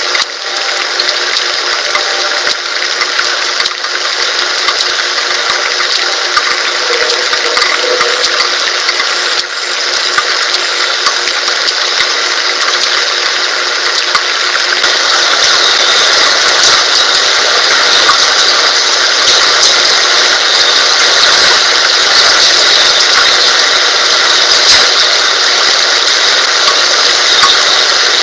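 Steady hiss of rain picked up by a webcam microphone, getting a little louder about halfway through.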